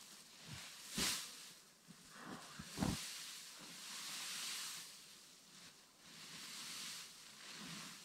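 Faint wind gusting, swelling and dying away in waves of hissing rustle, with a couple of soft low thumps in the first three seconds.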